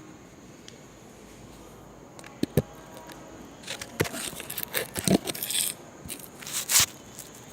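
Sharp clicks and knocks with scraping and rustling, starting about two seconds in and stopping shortly before the end: small hard objects being handled.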